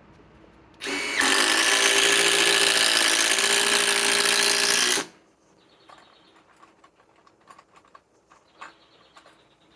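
Metabo HPT WH18DDX 18-volt subcompact impact driver driving a 4-inch screw into wood. It starts about a second in, runs steadily for about four seconds and stops abruptly, followed by a few faint clicks.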